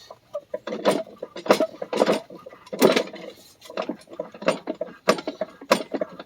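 Metal clanking and clicking, about a dozen irregular knocks in quick succession, from a front axle part and tools being worked on a Ford 1910 tractor while trying to line the part up.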